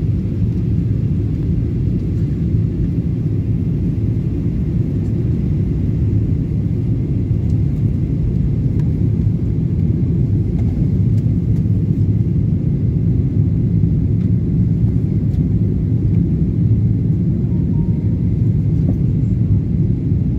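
Steady low rumble of jet airliner cabin noise, engines and rushing air heard from inside the passenger cabin, on approach to land with the flaps extended.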